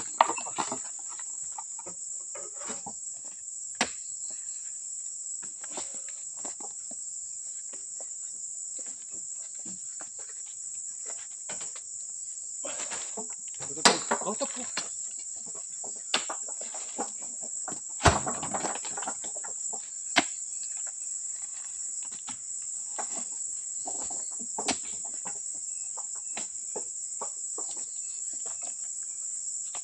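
Steady high-pitched insect drone throughout, with scattered knocks and thuds as oil palm fresh fruit bunches are speared with a pole spike and thrown up onto a truck bed; the two loudest thumps come about halfway through and a few seconds later.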